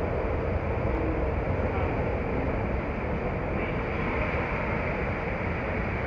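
Steady background rumble and hiss on an enclosed airport people-mover platform, with no distinct events.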